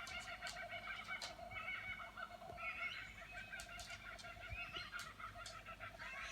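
Laughing kookaburra call: a long, continuous run of cackling notes, with shorter chirps from other birds mixed in.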